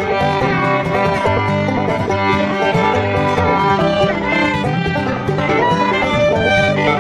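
Background music in a bluegrass style, with fiddle over banjo and guitar playing at a steady, lively pace.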